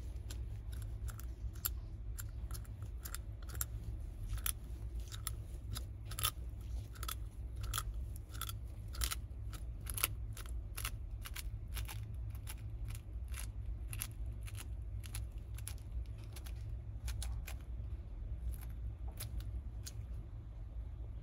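Yellow-headed water monitor (Varanus cumingi) crunching and chewing quail eggs: an irregular run of sharp cracking clicks, several a second, over a steady low hum.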